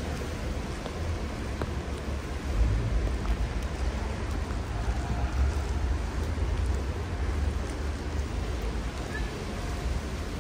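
Rain on a wet city street: an even hiss with a low rumble underneath.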